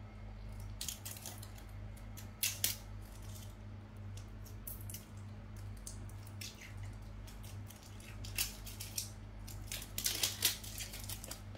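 Handling noise of a smartphone being turned over in the hands and set down on a cloth: scattered rustles, light taps and scrapes, loudest about two and a half seconds in and again around ten seconds, over a steady low hum.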